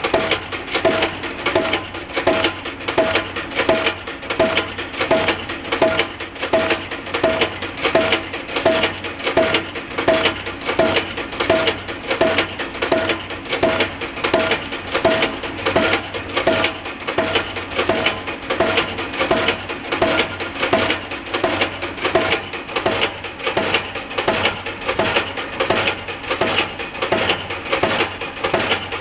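Pile-driving hammer striking a pile in a steady rhythm, about one and a half blows a second, each blow a metallic clang with a short ringing tone.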